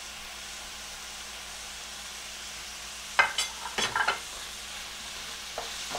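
Ground pork and chopped vegetables sizzling in a stainless steel sauté pan, a steady hiss. About three seconds in, a wooden spoon scrapes and knocks against the pan several times in quick succession as the meat is broken up.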